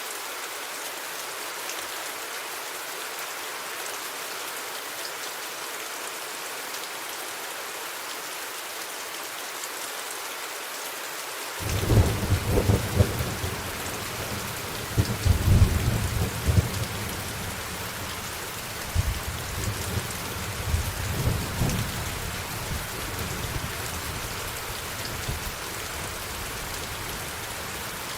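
Steady rain falling throughout. About twelve seconds in, a roll of thunder starts suddenly, rumbles in several deep swells, and dies away over the next dozen seconds.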